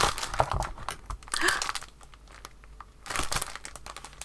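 Cardboard parcel and plastic wrapping being handled as the parcel is opened and its contents pulled out: a run of small crinkles and clicks, a quieter moment about halfway through, then more crinkling near the end.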